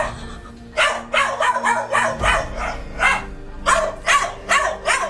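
A dog barking over and over in short, sharp barks about every half second, with no let-up.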